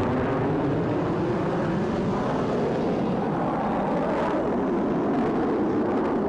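F-16 fighter jets flying past: a steady, loud rush of jet engine noise whose pitch drifts slowly.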